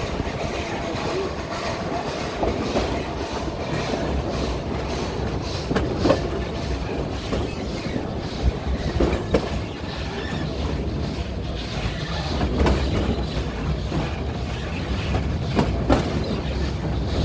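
Narrow-gauge steam train's wagons running along the track, wheels clattering over rail joints with irregular sharp knocks over a steady rumble.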